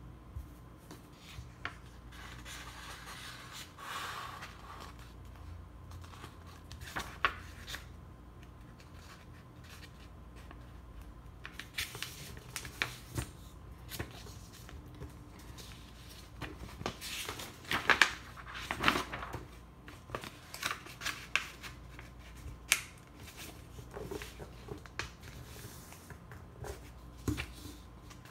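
Sheet of printer paper being handled and folded by hand on a tabletop: rustling and sliding, with sharper crinkles and taps as the folds are creased. Sparse at first, busier and louder in the second half.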